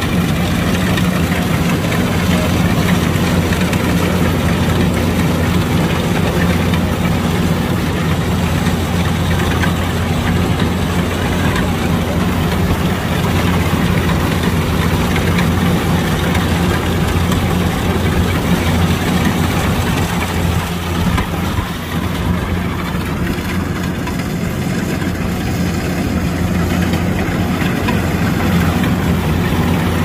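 Kubota DC-105X rice combine harvester's diesel engine running steadily as a low, even hum, briefly a little quieter about two-thirds of the way through.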